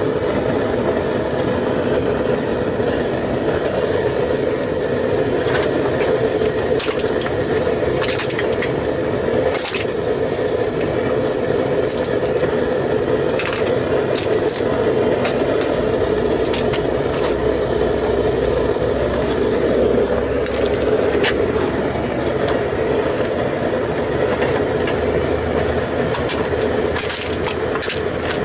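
Homemade propane furnace burner firing steadily, a continuous rushing sound with scattered sharp clicks and crackles on top.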